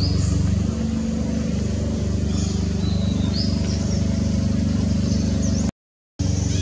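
A motor running with a steady low hum, with a few faint high chirps over it. The sound cuts out completely for about half a second near the end.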